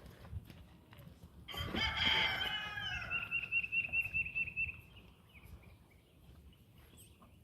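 A farm animal giving one loud call about a second and a half in, falling in pitch, which ends in a quick run of short, even pulses before stopping.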